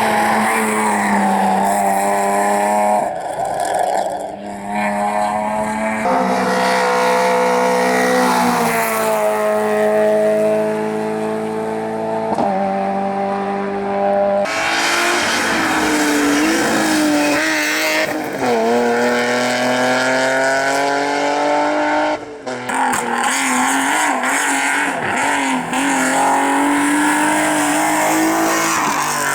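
Rally cars at full throttle on a special stage, engines revving hard and climbing in pitch, then dropping at each gear change. The sound changes abruptly three times, as if one car follows another.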